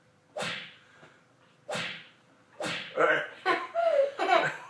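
Three sharp smacking hits about a second apart, each fading out quickly, as blows land. They are followed near the end by a burst of laughter.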